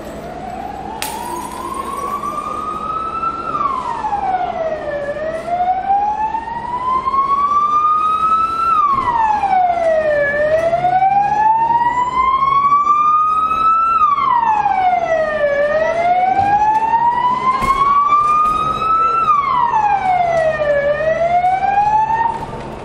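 Police van siren wailing, its pitch climbing slowly and falling back quickly about every five seconds, growing louder as the vans approach and cutting off just before the end. Vehicle engines hum underneath.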